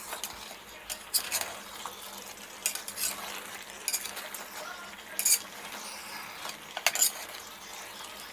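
A steel spoon scraping and clinking against a metal pot as masala-coated chicken pieces are stirred and roasted over a high flame. About six irregular scrapes sound over a faint steady sizzle of frying.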